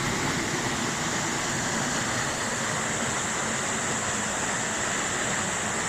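Steady roar of a waterfall's falling water, even and unbroken, heard from behind the curtain of water.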